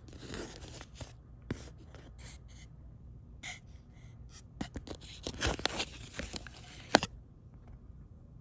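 Handling noise close to the microphone: scattered soft scrapes and rustles, busiest in the second half, ending in one sharp click.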